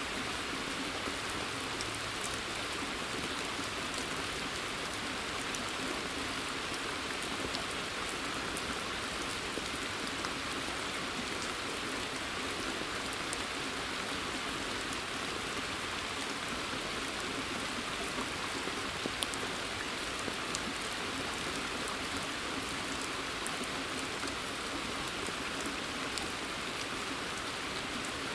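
Steady rain falling in a forest and onto a pond, an even hiss with scattered drop ticks and splashes on the water surface.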